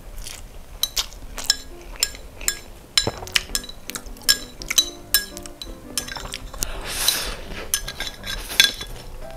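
Chopsticks clinking again and again against a small ceramic plate while noodles are picked up and eaten, with a noisy noodle slurp about seven seconds in. Background music plays underneath.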